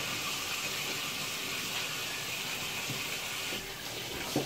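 Water running steadily from a tap, shut off about three and a half seconds in.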